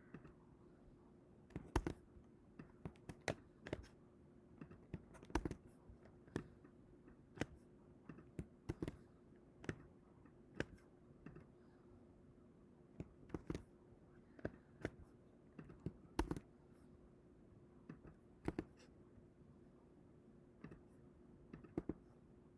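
Irregular clicks of a computer mouse and keyboard, a few a second at most with pauses between, over a faint steady hum.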